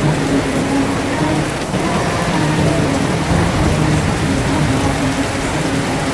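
Steady rain falling as an even, unbroken hiss of drops. Faint low held tones come and go beneath it.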